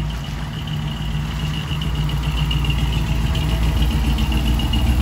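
A car engine running steadily at idle with a low, even rumble, growing slightly louder over the few seconds.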